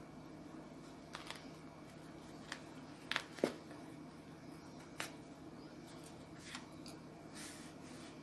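Faint handling sounds of yarn and a needle being worked through a stuffed crocheted toy: a few soft clicks and rustles, the loudest about three and a half seconds in, over a low steady hum.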